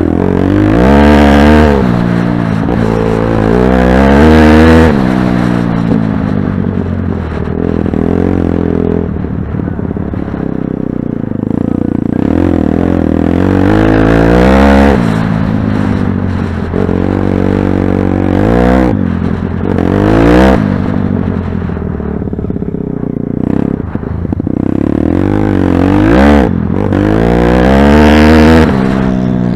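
Pit bike engine under a riding load, revving up and easing off again and again, its pitch climbing and dropping back several times, with rattling from the bike over rough ground.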